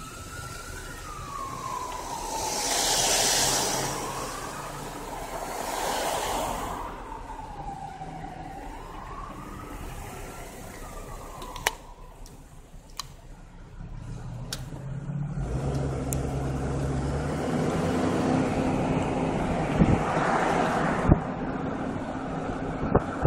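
Emergency-vehicle siren in wail mode, sweeping slowly up and down about every four to five seconds, which dies away about halfway through. After that, car and engine rumble of passing traffic takes over, with a few sharp clicks.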